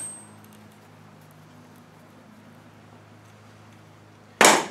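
Sharp metallic knocks from tools on a steel transfer box shifter housing in a vise: one knock dying away at the very start, a faint low steady hum, then a second sharp knock near the end.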